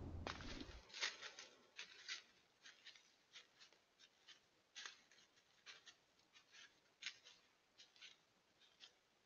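Faint crunching and rustling of a white-tailed deer's hooves stepping through dry leaf litter, irregular steps about three a second.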